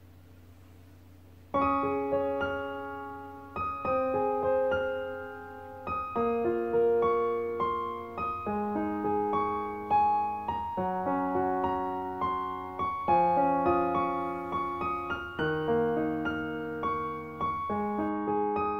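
Background piano music: a slow, gentle melody of single ringing notes, starting about a second and a half in.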